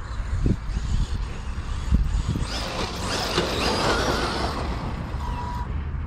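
Traxxas Maxx RC monster truck on a 6S battery driving over grass: for about three seconds in the middle its motor and drivetrain whine, wavering in pitch with the throttle. Under it is a steady low rumble of wind on the microphone, with two low thumps in the first two seconds.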